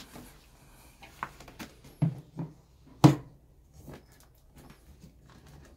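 Clear plastic food-storage container handled and set down on a tile floor: a few light knocks, then one louder knock about three seconds in.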